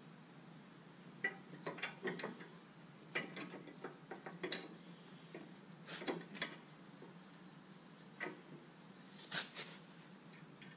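Scattered light metal clicks and knocks, about a dozen, as a Trac Vac 470 leaf-vacuum chute and its bracket are shifted by hand into position on a mower deck.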